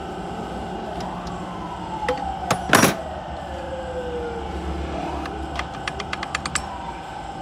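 Metal clinks and knocks of tools and parts on a stripped-down Suzuki Mehran engine block and crankshaft. The loudest is a ringing clank a little under three seconds in, followed by a quick run of light metallic ticks around six seconds. A steady hum in the background, with two slow falling whines.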